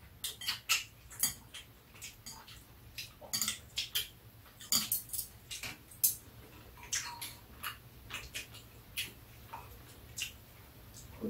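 Metal chopsticks and spoons tapping and scraping against bowls during a meal: scattered light clicks and clinks at an irregular pace.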